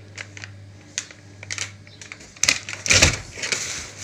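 Plastic packaging crinkling and equipment knocking as hands rummage through a lifeboat's survival-equipment box: scattered light clicks and taps at first, then a louder stretch of rustling and knocks about two and a half seconds in. A steady low hum runs underneath.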